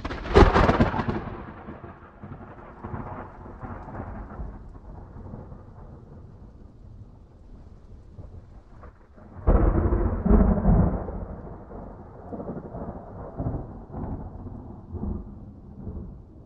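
Thunder: a sudden loud thunderclap at the start that decays into a long rumble, then a second heavy clap with another peak about a second later, around nine and a half seconds in, rolling off into lower rumbling.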